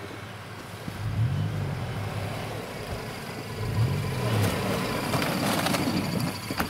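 Mitsubishi Pajero Sport engine revving up and dropping back twice as the SUV pushes through deep snow, with the noise of tyres churning snow growing louder as it comes close in the second half.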